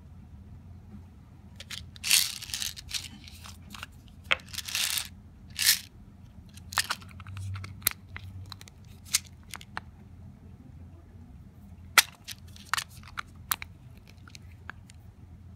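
Grey plastic push-and-turn pill bottle cap being twisted off and screwed back on the bottle: two short rough plastic scrapes early on, then a scattered series of sharp plastic clicks as the cap is turned and seated.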